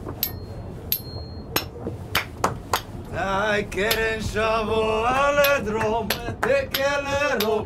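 Metal spoons clacked together in an irregular beat, sharp clicks with a brief high ring after the first two. About three seconds in, a man starts singing long, wavering notes over the clacking.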